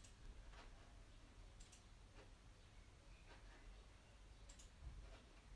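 Faint, scattered clicks of a laptop's keys and trackpad being tapped, over near silence.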